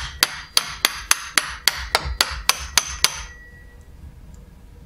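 Rapid hammer blows on steel, about three a second with a metallic ring, striking a snowmobile suspension balancer clamped in a vise; the blows stop about three seconds in.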